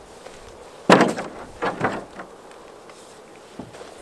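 A backpack set down into a canoe hull: a sharp thump about a second in, then a couple of softer knocks and rustles as the gear settles.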